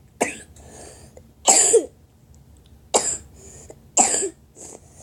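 A child coughing in a fit, about five hard coughs roughly a second apart, the second one the longest and loudest.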